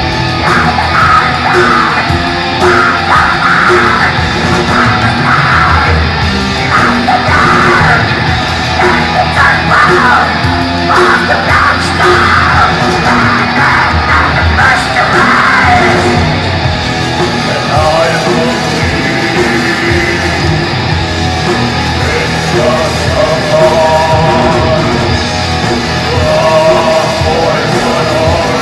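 Live black metal band playing loud: distorted guitars, bass and drums under screamed vocals for roughly the first half. After that a repeating higher melodic figure stands out over the band.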